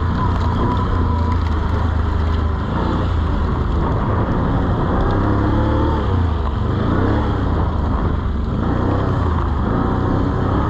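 Dirt bike engine running and revving up and down repeatedly, with the rear wheel struggling for grip in deep snow on tires without studs.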